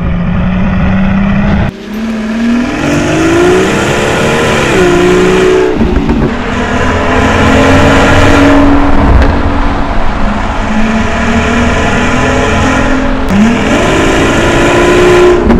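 Rolls-Royce Cullinan's twin-turbo V12 through a straight-piped exhaust with the particulate filters removed, accelerating hard. The engine note climbs in pitch under load, cuts off sharply near the start, holds steadier in the middle, and climbs again near the end.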